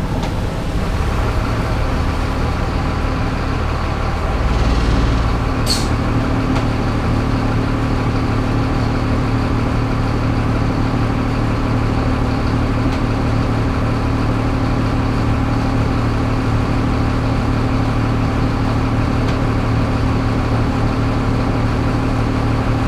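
City bus engine running steadily, heard from the driver's seat over the hiss of heavy rain and a wet road. One brief sharp sound about six seconds in.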